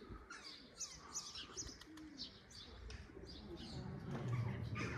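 Small birds chirping, short high chirps several a second, over a low murmur that grows louder near the end.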